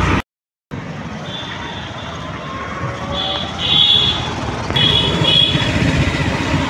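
Busy street traffic noise that cuts out completely for about half a second near the start. Short high-pitched electronic beeps come and go over it from about a second in, loudest around four seconds in.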